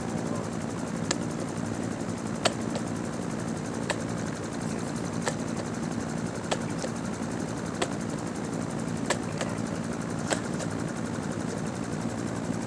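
A machine running with a steady low hum, with a light click repeating about every second and a quarter.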